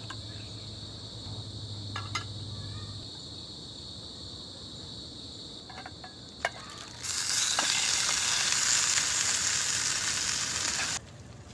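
Ground meat sizzling loudly as it hits a hot pan on a camping gas stove. The sizzle starts suddenly about seven seconds in and cuts off abruptly about four seconds later; before it come a few sharp clicks.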